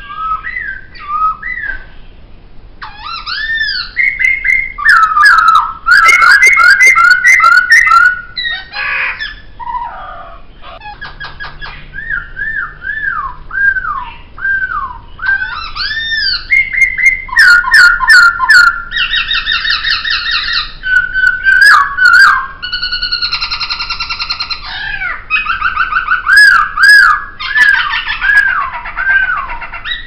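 Poksay (laughingthrush) singing a loud, varied song. It repeats phrases of slurred whistled notes that rise and fall, strung together in quick runs, and mixes in harsher, rasping phrases in the second half.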